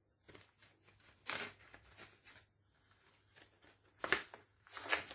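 Knife blade cutting and prying at a cardboard advent-calendar door: short scraping and tearing of card in scattered bursts, the loudest about four and five seconds in.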